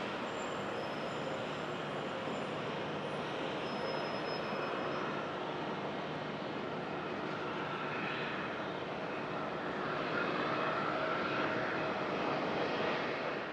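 Cessna 680 Citation Sovereign business jet's twin turbofan engines running, a steady rush of jet noise with a whine that grows a little louder in the second half.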